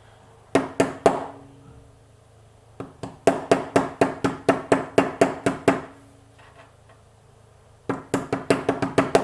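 Small hammer tapping a punch to drive out the retaining pin of a Pollux 7 lock: sharp metallic taps with a ringing note. Three come first, then a quick run of about a dozen at roughly five a second, and another fast run near the end.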